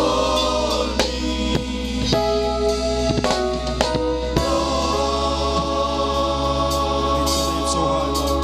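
Gospel praise music: a group singing over a drum kit and sustained keyboard chords, the drum strokes dropping back from about four and a half seconds in as held chords take over.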